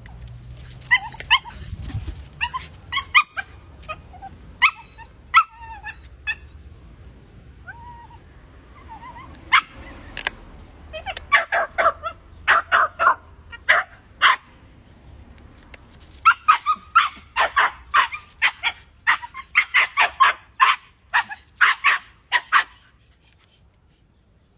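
West Highland White Terrier barking at a cat in sharp, high yips, the excited barking of a terrier's prey drive. Scattered yips and a brief whine give way in the second half to rapid volleys of barks that stop shortly before the end.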